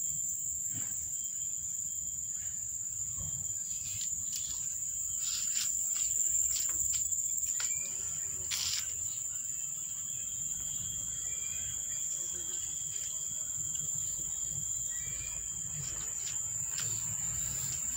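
Crickets trilling steadily in one continuous high-pitched tone, with scattered faint clicks and rustles over a low rumble.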